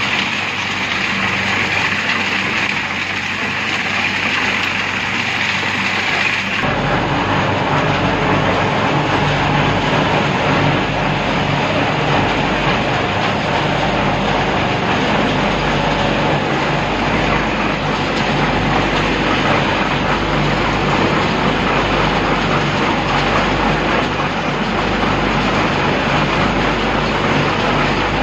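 Concrete mixer running steadily with stone aggregate and wet concrete churning inside. About seven seconds in, the sound changes abruptly to a deeper, fuller rumble.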